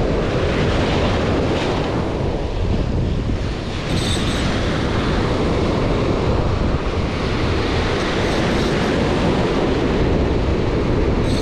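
Ocean surf breaking and washing around the legs, with steady wind buffeting the microphone. A brief high hiss about four seconds in.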